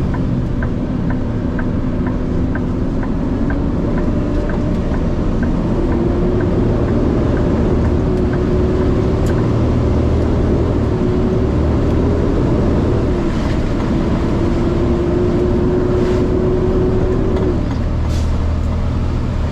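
Truck engine heard from inside the cab while driving, a steady drone whose pitch climbs and drops a few times. A quick, regular ticking runs through the first eight seconds or so.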